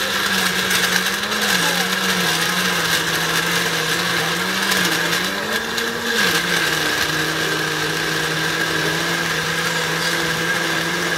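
Countertop blender running continuously, chopping shallots, leek and lemongrass with a little water into a paste. The motor's pitch wavers as the chunks break up, then settles into a steadier hum from about six seconds in as the mix turns smooth.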